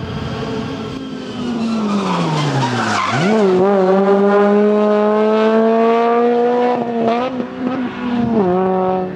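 Honda Civic FN2 rally car's four-cylinder engine taking a hairpin. The revs fall as it slows for the bend, then there is a sharp blip about three seconds in and it accelerates hard past close by, the pitch climbing slowly. Quick gear changes come about seven seconds in and again near the end as it pulls away.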